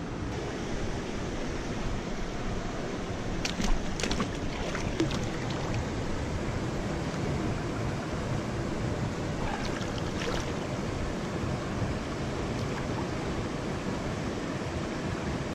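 River water rushing steadily, with a few short clicks or knocks about four seconds in and again near ten seconds.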